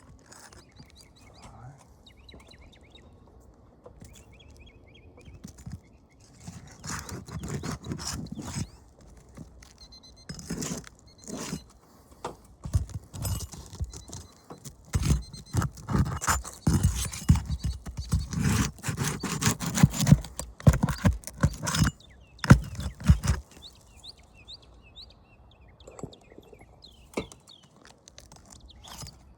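Hand tools scraping and knocking against asphalt shingles and roof nails as a damaged shingle is worked loose for removal. The sound is an irregular run of sharp clicks and knocks with scraping between them, busiest in the second half.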